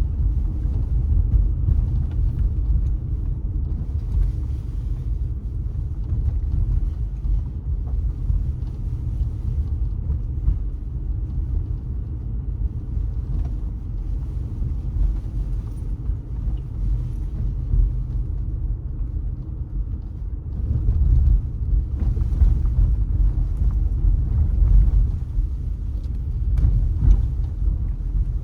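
Low, steady rumble of a car driving along city streets: engine and tyre-on-road noise, growing somewhat louder about two-thirds of the way through.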